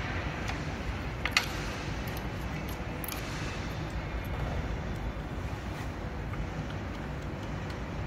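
Steady low background rumble, with one sharp click about a second in and a few light ticks soon after as the charging-port cable and parts are handled against the scooter's metal frame.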